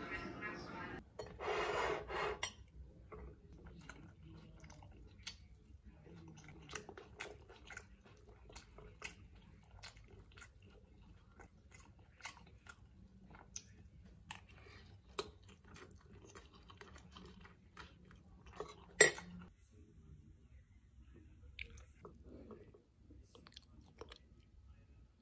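Close-up eating sounds: a fork clinking and scraping in a bowl as a rice, bean and red cabbage salad is mixed, and chewing with light crunching, made up of many small scattered clicks. One sharp clink stands out about 19 seconds in, and a short burst of noise comes about two seconds in.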